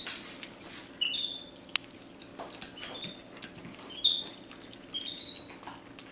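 Capuchin monkey giving short, high, squeaky chirps, about five of them, each rising slightly, roughly one a second, while it eats. A few sharp clicks fall between them.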